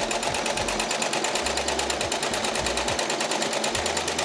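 Small home sewing machine running at a steady speed while free-motion quilting, its needle stitching through a quilt sandwich under a darning foot in a fast, even clatter.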